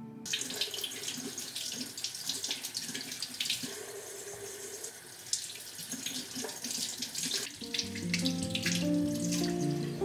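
Kitchen tap running, its water splashing over hands as potatoes are rinsed under it. A soft melody of held notes comes in about three-quarters of the way through, alongside the water.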